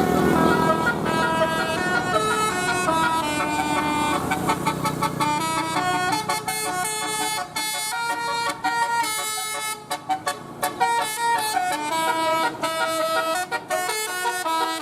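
A bus's telolet basuri musical horn playing a quick melody of short, stepped notes that change pitch every fraction of a second, over a low vehicle rumble that fades after the first few seconds.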